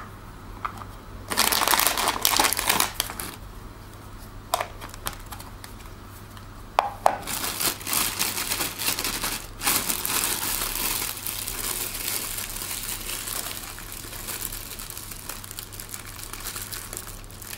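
Thin plastic food bag crinkling as it is opened out, filled and knotted, the crinkling running steadily through the second half. Before it, a short burst of rustling about two seconds in and a couple of light clicks.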